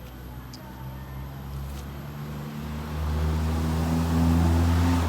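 A vehicle engine running with a low, steady hum, growing louder about three seconds in as if coming closer.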